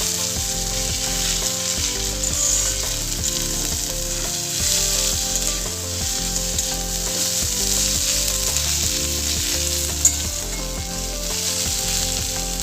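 Onion and ginger paste sizzling as they fry in hot oil in a pan, stirred now and then, with one sharp click about ten seconds in.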